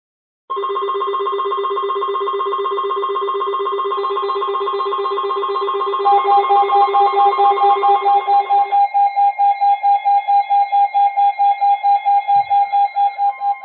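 NOAA Weather Radio alert tones for a Winter Storm Warning. A steady high warning tone, with a lower steady tone under it, starts half a second in and holds until about nine seconds. A fast pulsing beep, about four or five a second, joins partway through, grows louder, carries on alone after the steady tones stop, and cuts off at the end.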